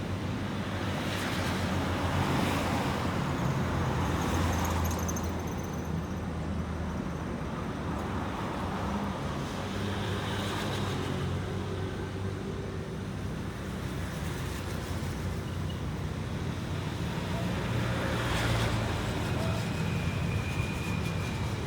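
Road traffic: a steady rumble of vehicle engines and tyres, swelling as vehicles pass about two to four seconds in and again near the end.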